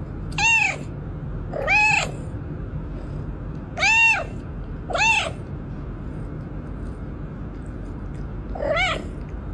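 Domestic cat meowing five times, short calls that rise and fall in pitch, with a longer gap before the last one, over a steady low background noise.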